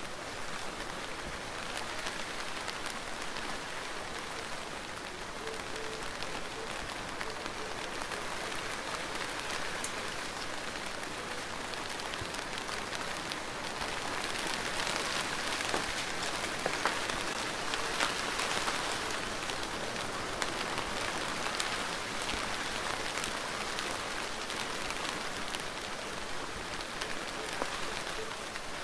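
Steady rain falling, with many separate drop hits heard through it. It gets a little heavier about halfway through.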